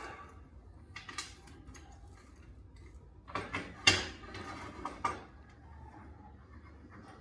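Scattered knocks and clinks of things being handled on a work surface, a few light ones early, then a cluster of sharper clinks in the middle, the loudest about four seconds in.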